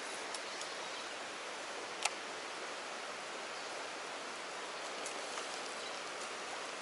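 Fast, turbulent river current rushing over rock: a steady, even rush of water, with a single sharp click about two seconds in.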